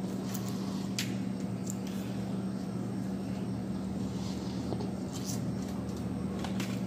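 Snow crab leg shells cracking and snapping by hand a few times, sharpest about a second in, with soft eating sounds over a steady low hum.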